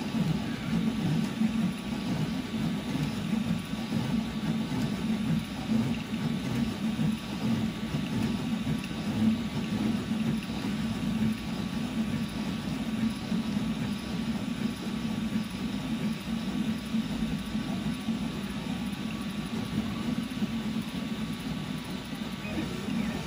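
Railcore II 300ZL CoreXY 3D printer printing infill at 250 mm/s: its stepper motors whir and buzz, the pitch and level changing rapidly with each fast back-and-forth move of the print head.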